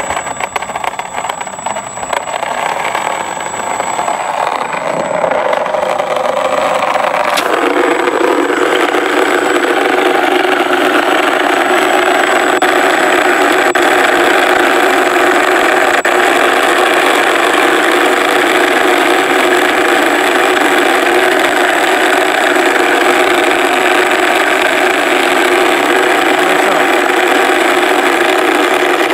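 ESS-Air sound unit in an RC P-47 playing a simulated engine running sound through its exciter. The sound swells over the first few seconds, steps up to a louder steady level about seven seconds in, and then holds. It sounds bad, which the modellers put down to the exciter not being stuck firmly onto a flat surface.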